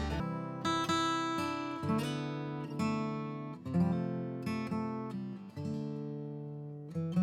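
Background music: an acoustic guitar strumming chords, each chord ringing out and fading before the next.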